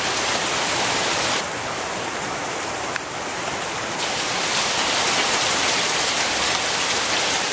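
Heavy rain falling steadily, a dense hiss that dulls for a couple of seconds and grows louder again about four seconds in.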